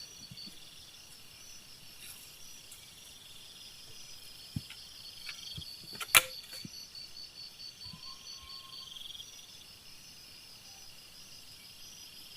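Night insects chirping steadily in a rapid even pulse, with a second buzzing trill swelling every few seconds. A single sharp click sounds about six seconds in.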